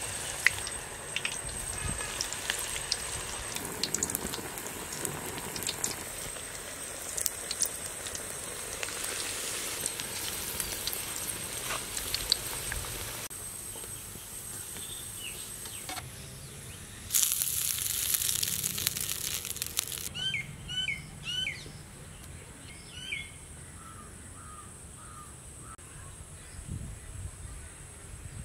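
Banana blossom vadai deep-frying in a kadai of hot oil, a steady sizzle with scattered crackles through the first half. Past the middle comes a short, loud high hiss, then a run of bird chirps.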